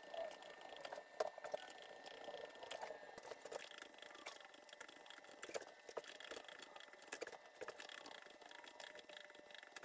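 Faint scattered clicks from a hand-cranked LEM 5 lb vertical sausage stuffer being turned, pushing meat out through the stuffing tube into the casing.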